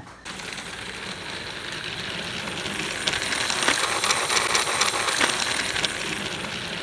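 Battery-powered TrackMaster Wing Thomas toy engine running along plastic track: a steady motor whir with the rattle of its wheels on the track. About three seconds in, a burst of clicking and clattering makes it louder for a few seconds.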